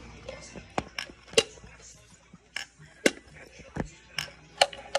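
Small hard-plastic toy wheelie bins clacking and knocking against a tile floor as they are handled and tipped, in a string of irregular sharp clicks about a second apart.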